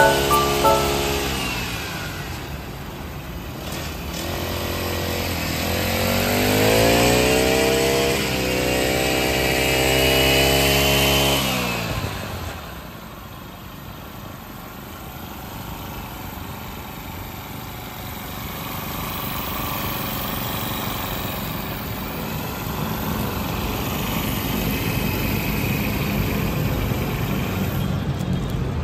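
Honda GX50 four-stroke single-cylinder engine on a brush cutter running. The throttle is eased off in the first couple of seconds, then it revs up from about five seconds in, holds at high speed for several seconds and drops back to a quieter low idle.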